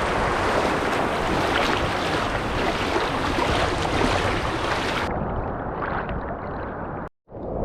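Steady rush of ocean surf and wind on the beach. About five seconds in it turns duller and muffled, and it cuts out briefly near the end.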